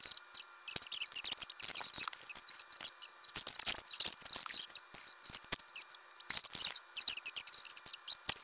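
Sped-up audio from a time-lapse of stickers being handled and pressed onto a water bottle: rapid, thin, high-pitched crackling and rustling of sticker paper with no low end.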